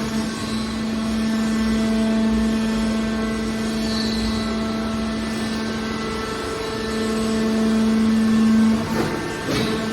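Metal baler's hydraulic power unit running with a steady pitched hum, swelling louder for a couple of seconds near the end, then a short burst of metallic clattering.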